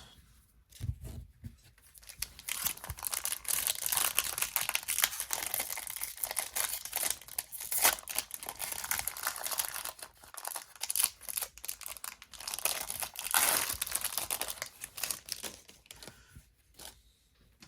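Crinkly wrapper of a Topps baseball card pack being torn open and crumpled, a dense crackling that runs for most of the stretch with a short pause about halfway through.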